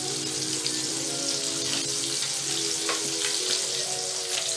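Bilong-bilong fish frying in hot oil in a frying pan: a steady sizzle with small crackles and pops. Soft background music with held notes plays underneath.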